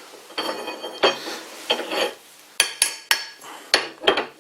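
Small metal parts clinking and knocking together as they are handled, a dozen or so irregular clinks, some with a short bright ring.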